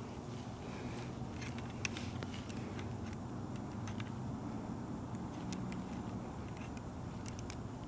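Scattered light clicks and taps, irregular and of varying loudness, over a steady low hum.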